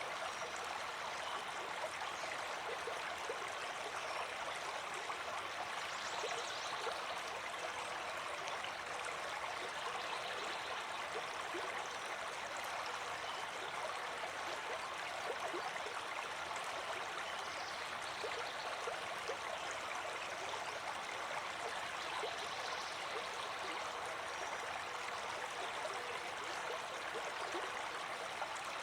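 River water flowing: a steady, even rush with fine babbling, light and without a deep rumble.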